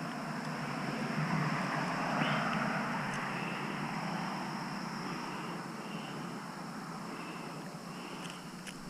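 An engine passing by, a low hum that swells in the first couple of seconds and then slowly fades.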